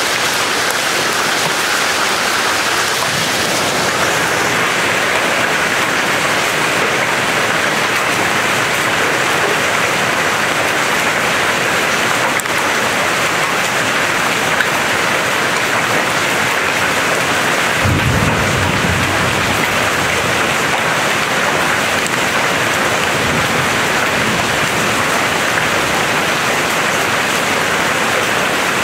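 Hail and heavy rain pelting the ground in a dense, steady hiss. A low rumble of thunder swells about two-thirds of the way through.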